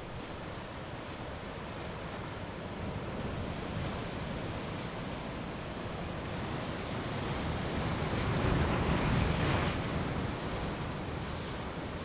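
Ocean surf washing against a rocky shore, one wave swelling to a peak about nine seconds in and then falling away.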